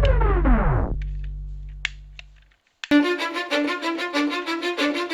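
Background music: one track ends with its pitch sliding downward and a low bass tone fading out, then after a brief gap about three seconds in, a new beat starts with a fast, repeating string riff.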